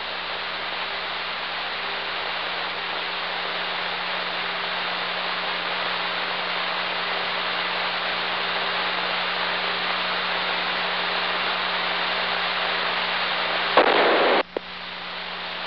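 Steady hiss of static on an open aircraft radio channel, with a low steady hum beneath it. About fourteen seconds in, a louder burst of static lasts under a second, then the hiss cuts out sharply and comes back.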